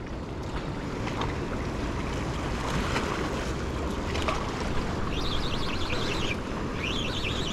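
Wind blowing across the microphone over the wash of open water, a steady rushing noise. High twittering calls come in about five seconds in and again near the end.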